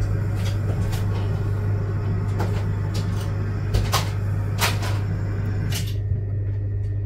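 Kitchen background: a steady low hum with about half a dozen scattered clicks and light knocks.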